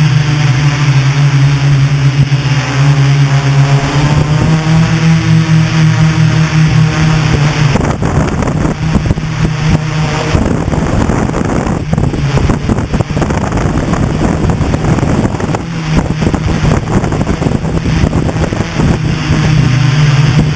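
Hexacopter's brushless motors and propellers running, heard loud and close from the onboard camera as a steady low hum. From about a third of the way in until past the middle, rough buffeting of air on the microphone largely covers the hum, which then comes back steady.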